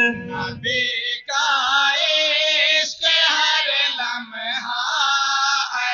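Men's voices chanting an Urdu naat, a devotional poem in praise of the Prophet, without instruments. It is sung in drawn-out melodic phrases broken by short pauses for breath, about a second in, near three seconds and again just after four.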